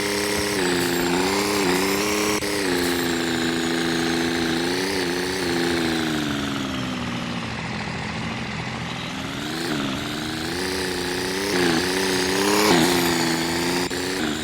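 Truck engine running while driving off with a loaded trailer in tow, its engine speed rising and falling as it goes, easing off in the middle and picking up again.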